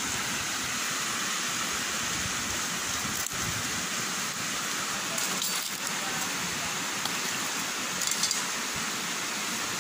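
Steady rushing of a river, with a few faint clicks about three, five and eight seconds in.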